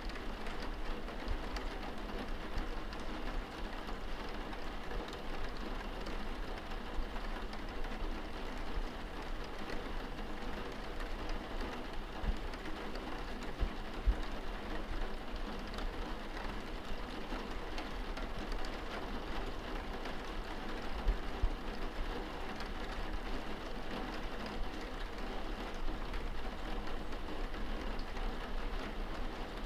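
Rain falling on window glass, heard from indoors: a steady patter of many small drops over a low rumble, with a few louder single taps.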